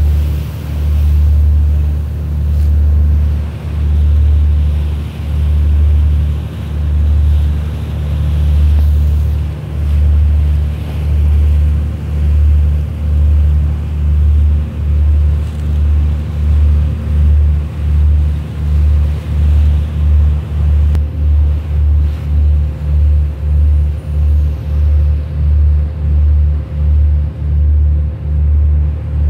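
A boat's engine, heard from on board, running with a steady low drone that throbs in an even beat. The beat quickens from a slow swell to about one pulse a second.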